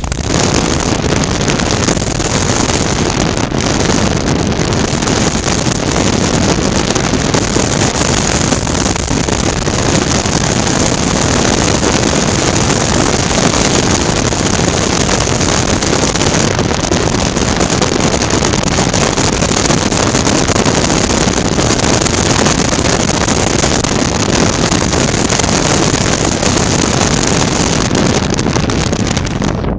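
2019 Suzuki V-Strom 650's V-twin engine running at a steady cruise, heard through heavy, steady wind rush on a helmet-mounted microphone.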